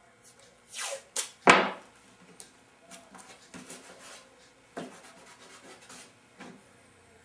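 Painter's tape pulled off the roll and torn in three quick rips about a second in, followed by softer rubbing and rustling as the tape is pressed onto the wood.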